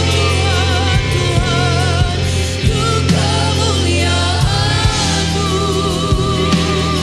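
Christian worship music: singers holding long wavering notes over steady sustained low chords, with a drum beat knocking through it.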